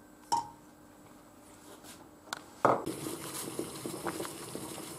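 A sharp metallic clink as an egg is lowered into a stainless steel saucepan. From about two and a half seconds in, water boils hard in the pan to hard-boil the egg, a steady bubbling full of small pops.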